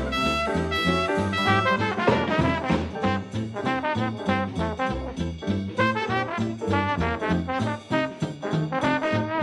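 Background jazz music led by brass instruments, with a steady beat and a moving bass line.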